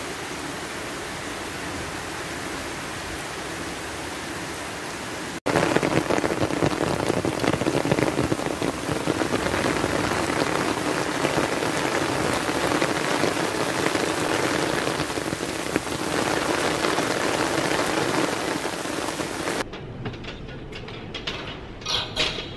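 Steady rain falling on a garden lawn and paving, an even hiss that gets louder after a cut about five seconds in. Near the end the rain gives way to a quieter background with a few soft rustles and clicks.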